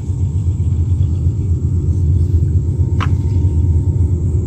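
Steady, loud low rumble of wind buffeting the microphone, with one brief sharp high sound about three seconds in.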